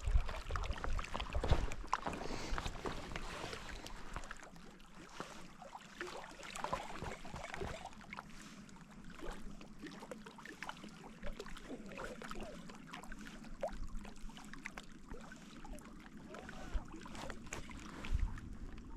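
Water lapping and sloshing, with scattered small clicks and knocks.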